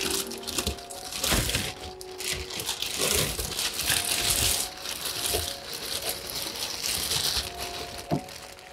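Thin plastic bag crinkling as it is pulled and crumpled off a 1/10-scale RC truck, with a short knock near the end, over background music.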